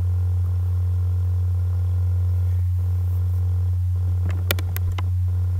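Steady low electrical hum, the recording's mains hum, with a few sharp clicks about four and a half seconds in.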